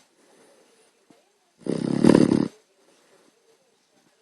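A sleeping puppy snoring: one loud, fluttering snore about a second long near the middle, part of a steady rhythm of snores, with faint breathing noises between.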